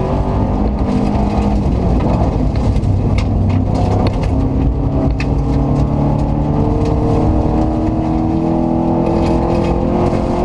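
Subaru Impreza 2.5 RS rally car's flat-four engine pulling hard under load, heard from inside the cabin, with a gear change about two seconds in and then revs climbing slowly. Scattered sharp clicks of gravel strike the car along the way.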